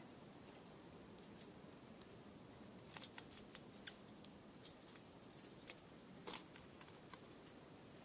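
Faint, scattered sharp clicks and ticks of dark-eyed juncos pecking seed and hopping in a metal feeder tray, over a low steady hiss.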